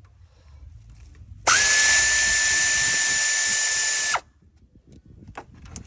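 Handheld power tool run at a steady speed for about two and a half seconds, starting about a second and a half in and cutting off suddenly, backing out a thermostat housing bolt. A few faint clicks of tool on metal follow.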